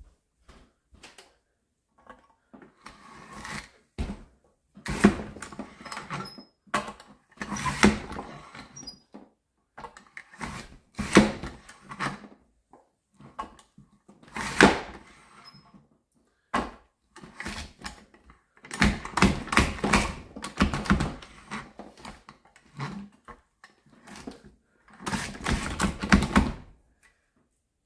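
Lever-action French fry cutter pressing raw peeled Yukon Gold potatoes through its blade grid, one potato at a time. About eight separate bursts of clacking come a few seconds apart, with quiet gaps between them.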